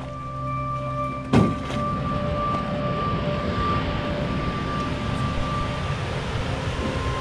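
Steady rush of white-water river rapids, starting abruptly after a click about a second and a half in. Before it, sustained notes of background music play, and they carry on faintly under the water.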